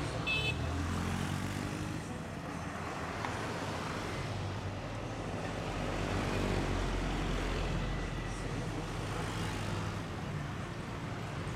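Road traffic with heavy diesel trucks and buses and motorcycles running past, a steady low engine rumble that grows a little around the middle. A short high beep sounds about half a second in.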